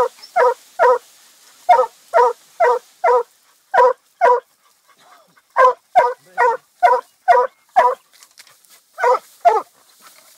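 Dog barking up a tree while treeing, baying at an animal it has chased up there: loud short barks in runs of about two a second, broken by brief pauses.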